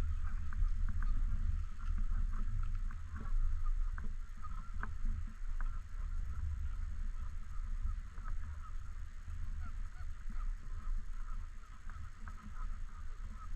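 A flock of Canada geese honking, many short calls scattered and overlapping over a steady low rumble.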